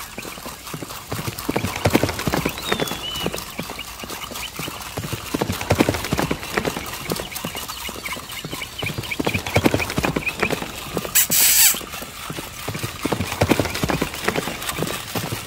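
Electric walking toy horse sounding a run of clip-clop hoofbeats as it walks along. A brief loud rushing noise comes about eleven seconds in.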